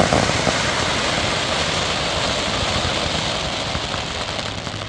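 Fireworks: ground fountains and low shells spraying sparks, making a dense, steady hissing crackle that slowly fades near the end.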